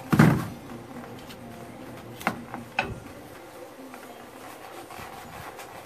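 A dull clunk, then two sharp metallic clicks about half a second apart, from pliers and CV-joint parts being handled and set down on cardboard. Faint rubbing of a shop rag on the driveshaft follows.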